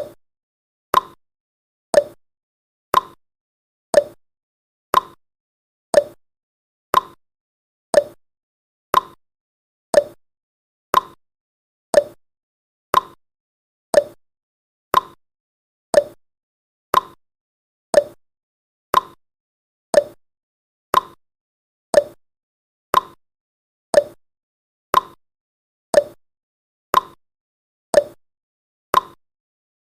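Countdown timer ticking, one short click every second with alternate ticks slightly higher and lower, like a clock's tick-tock.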